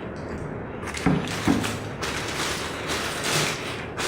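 Rustling and knocking from handling the packaging and bicycle rims just taken out of their box, with two sharp knocks about a second in.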